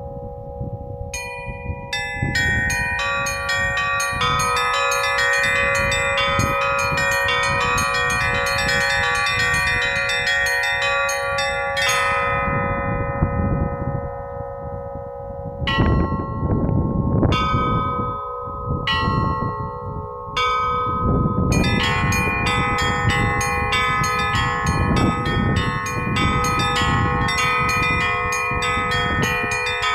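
Russian bell ringing (zvon) on a portable belfry: small treble bells struck in quick runs over the steady hum of larger bells, thinning to a few single strokes midway before the quick runs start again.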